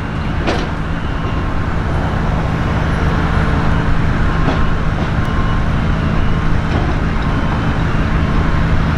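Steady road vehicle noise: a continuous low rumble of traffic and tyres.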